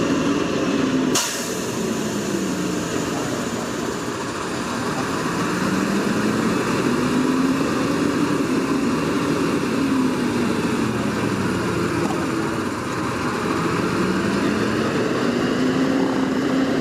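Heavy diesel truck engine running under load, its speed rising and falling slowly over and over, with a sharp click about a second in.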